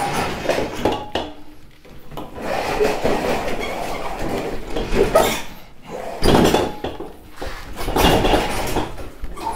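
Scraping and rubbing of hard objects being handled and shifted, in several rough surges; the loudest come about six and eight seconds in.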